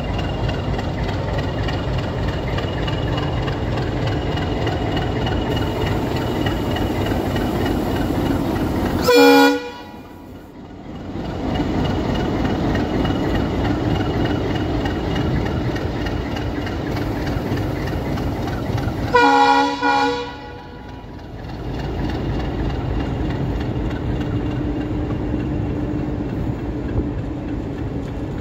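WDS-6AD diesel shunting locomotive running steadily as it moves past, sounding its horn twice: a short blast about nine seconds in and a longer one about ten seconds later. The horn blasts are the loudest sounds.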